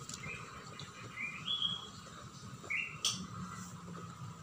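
A bird chirping: three or four short high notes, one of them rising, with a click about three seconds in.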